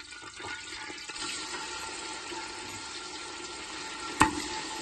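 Warm oil in a steel pot sizzling steadily as the first pieces of bone-in mutton are laid in. One sharp knock sounds a little past four seconds.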